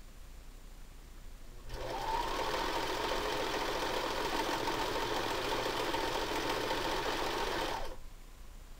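Singer electric sewing machine running a straight stitch: it starts about two seconds in with a brief rising whine as the motor speeds up, runs steadily, then stops abruptly near the end.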